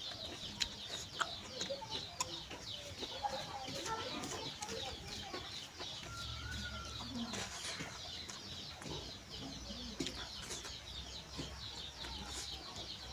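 Chickens clucking and birds chirping, a dense run of short high chirps, with scattered sharp clicks.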